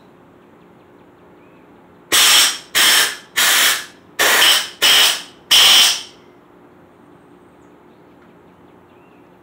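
Compressed air blown in six short, loud hissing blasts through the small holes in the bottom of a Harley-Davidson brake master cylinder to clear out gunk.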